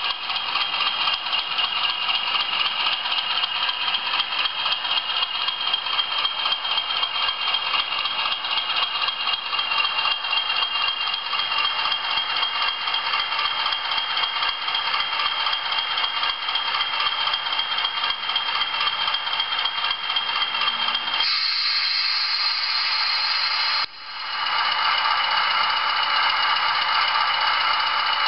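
Bachmann OO gauge Class 20 model's DCC sound decoder playing a diesel engine idling, heard through the model's small speaker with a rapid even beat and no bass. About three-quarters of the way through, a hiss takes over for a couple of seconds. The engine sound then cuts out briefly and comes back up.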